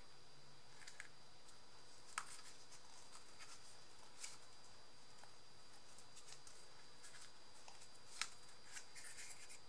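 Faint rustling of paper and chipboard being handled, with a few sharp light taps, about 2, 4 and 8 seconds in, over a steady background hiss.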